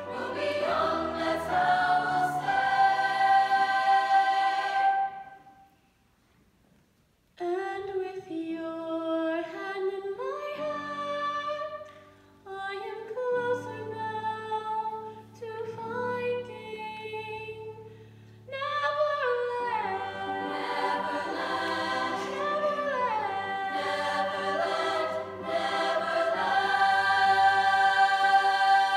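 Treble choir of girls' voices singing with piano accompaniment. After a few seconds the singing stops for about two seconds, then a softer passage follows with a single solo voice over piano chords, before the full choir comes back in about two-thirds of the way through and swells to a loud held final chord.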